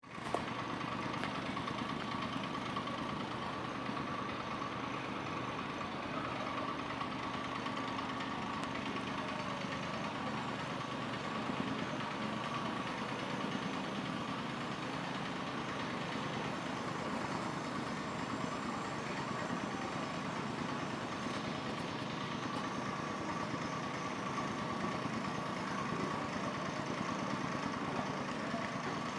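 Tamping rammer (stamper compactor) with its small engine running, a steady sound with a fast, even pulsing throughout.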